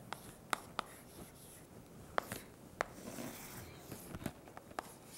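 Chalk writing on a blackboard: several sharp taps as the chalk strikes the board, with short scratchy strokes between them as lines are drawn, faint overall.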